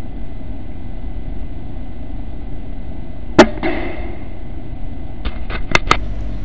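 Air Arms S510 pre-charged pneumatic air rifle firing once, a single sharp crack about halfway through, followed by a few lighter clicks near the end. A steady low background rumble runs underneath.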